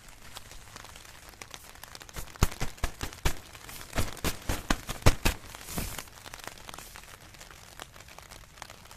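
Thin polyester tarp sheet crinkling and popping as it is handled, a burst of sharp irregular crackles from about two to six seconds in over a faint steady hiss.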